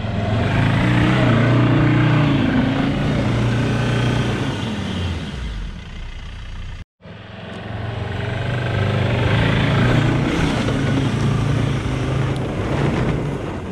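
Ford Endeavour's 3.2-litre five-cylinder diesel revving hard under load on a steep dirt climb, its tyres spinning and churning the loose soil as traction runs out. The engine note rises, holds high and sags, then after an abrupt break about seven seconds in it revs up again.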